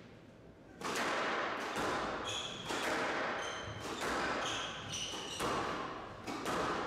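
Squash rally: the ball cracks off rackets and walls about once or twice a second, starting about a second in, with short high squeaks from players' court shoes on the wooden floor between the hits.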